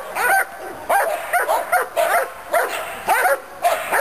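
Caucasian shepherd dog barking in quick succession at a training decoy, about two barks a second, each bark rising and falling in pitch.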